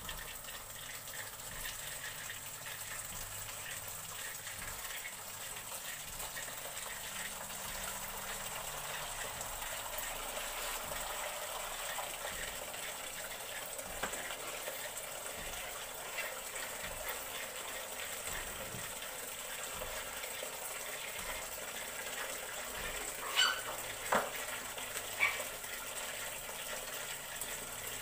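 Water running steadily into a plastic basin, first from a tap and then poured from an electric kettle to warm it. Near the end come three brief, sharp, higher sounds.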